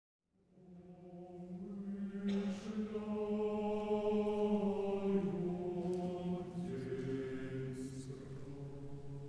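A choir chanting slowly in long held notes, several voices at different pitches at once. It rises out of silence and swells over the first couple of seconds. The sung words are about the Last Judgement.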